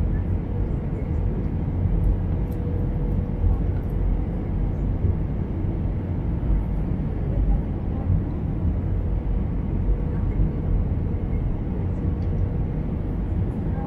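Steady deep rumble of engine and airflow noise heard inside the cabin of an Airbus A320-214 with CFM56-5B engines, on final approach with flaps extended. A faint steady hum runs through it.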